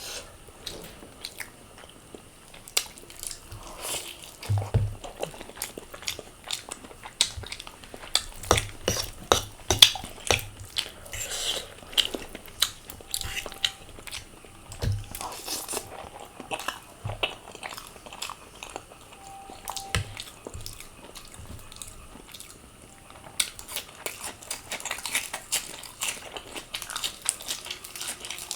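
A person eating close to the microphone: irregular biting and chewing with many short, sharp clicks and wet mouth sounds.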